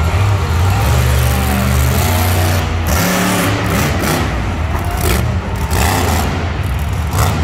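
Monster truck engines running loud and revving as a truck jumps a row of crushed cars, with a few short bangs.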